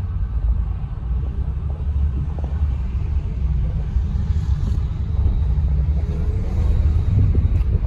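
Steady low rumble inside the cabin of a moving Volkswagen Golf R32: engine and road noise, growing slightly louder toward the end.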